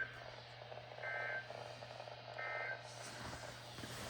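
Short bursts of Emergency Alert System SAME data tones from a NOAA Weather Radio broadcast, the two-tone digital screech repeating about every 1.3 s. The bursts are brief, like the end-of-message code after a warning.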